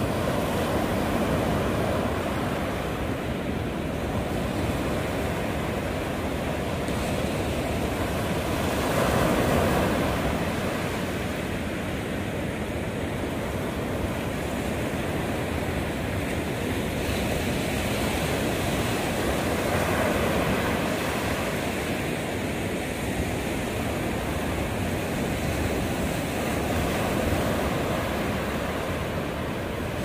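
Ocean surf breaking and washing up a sandy beach: a continuous wash of noise that swells and ebbs as the waves come in, loudest about nine seconds in.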